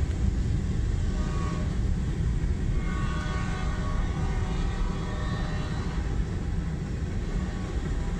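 Freight train of tank and hopper cars rolling through a level crossing: a steady low rumble of wheels on rails, heard from inside a car waiting at the crossing. Faint pitched tones come and go above the rumble.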